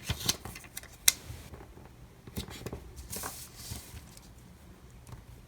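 Small taps and clicks with a brief paper rustle from handling stickers and planner paper on a desk; the sharpest tap comes about a second in.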